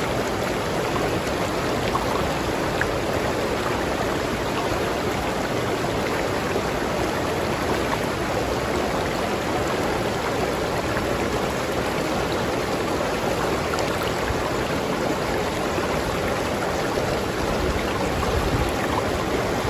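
River water flowing and splashing over rocks in a steady, even rush.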